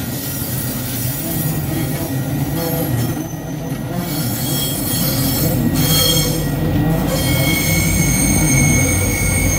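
Stainless-steel bilevel commuter coaches rolling past with a steady rumble of wheels on rail and high-pitched metallic squealing from the running gear. The squeal tones come and go, and a steady high squeal sets in about seven seconds in.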